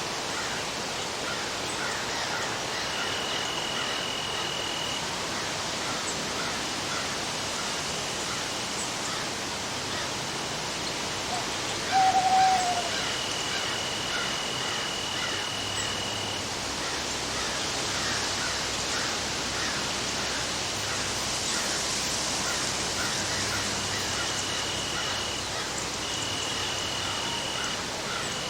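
Forest storm ambience: a steady even hiss of storm noise with scattered small ticks throughout. A high steady tone comes and goes four times, and a single short falling call about twelve seconds in is the loudest sound.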